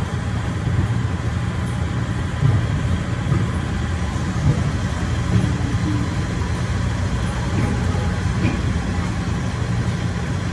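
Steady low rumble of an amusement-park ride train running along its track, heard from on board.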